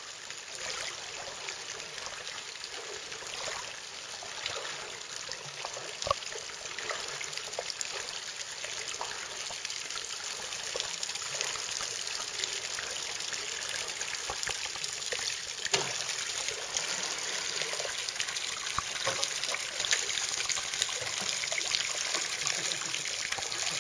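Steady splashing and trickling of water jets from a tandem sea kayak's electric bilge pumps, pouring onto the lake surface as the flooded cockpits are pumped out after a re-entry. The splashing grows louder as the kayak comes closer, with an occasional sharp knock.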